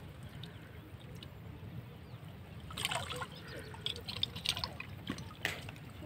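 Water splashing and dripping as a weed-tangled fishing net is hauled up out of shallow lake water. The splashes and drips start about three seconds in and come in a quick, irregular run.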